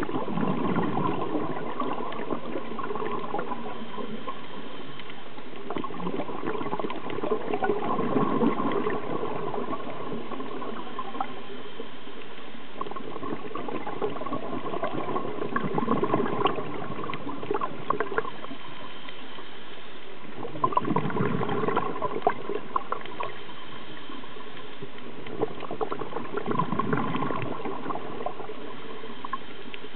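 Scuba diver's regulator breathing underwater: exhaled bubbles gurgle out in five bursts of about two seconds each, several seconds apart, over a steady hiss.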